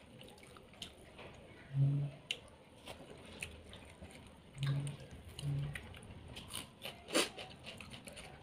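A person eating fried fish and rice by hand: soft chewing and mouth clicks throughout. There are three short low hums about two, almost five and five and a half seconds in, and a sharper smack about seven seconds in.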